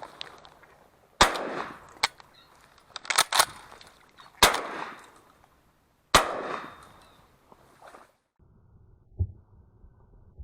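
A volley of shotgun shots: about five loud blasts in some five seconds, two of them close together, each followed by a long echoing tail. Near the end, a single dull thump.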